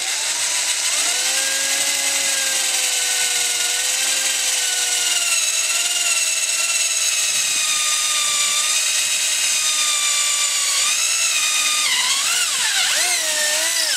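Corded electric drill running under load as a twist bit bores a hole down through a wooden board. Its motor whine holds steady and sags slightly in pitch, then wavers up and down in the last few seconds.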